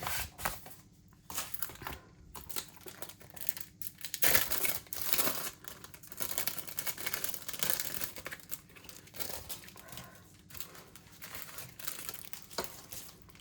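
Paper and plastic mail packaging being crinkled and torn open by hand, in irregular rustling bursts.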